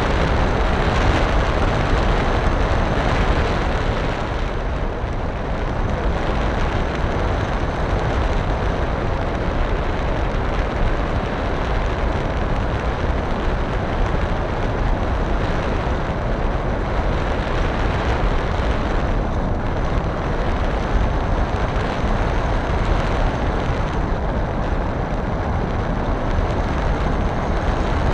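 Wind rushing and buffeting over the microphone of a camera riding on a flying model aircraft: a loud, unbroken rush with a heavy low rumble and a faint steady high whine.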